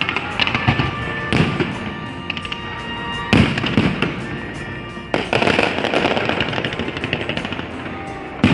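Aerial fireworks going off in a sequence of sharp bangs, the loudest about three seconds in and another just past five seconds, with crackling between the bursts.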